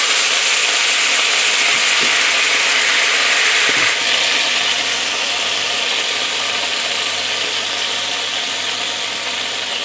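Giant tiger prawn tail sizzling hard in hot oil in a black iron pan, just after soy sauce and sesame oil have gone in. The sizzle eases a little after about four seconds, with a couple of light clicks as tongs turn the prawn.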